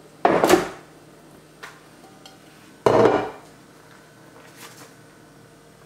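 Two loud knocks about two and a half seconds apart: an upturned glass loaf dish knocked down on a bamboo cutting board to turn out a cooked chicken terrine. A faint rustle of plastic film being peeled off the loaf follows.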